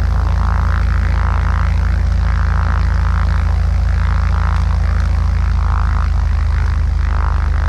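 Socata TB20's six-cylinder piston engine and propeller running at idle close by: a steady low drone, with a higher hum that swells and fades about once a second.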